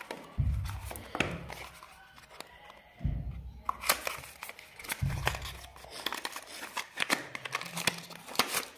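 Cardboard packaging being handled and opened: a paperboard inner box slid out of its outer box and opened, and the paper wrapping inside rustled. There are scrapes and clicks throughout and three dull low thumps.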